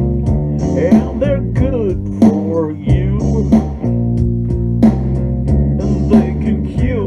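Instrumental blues-style band music: a guitar lead with bent, sliding notes over bass guitar, with a steady beat hitting about every 1.3 seconds.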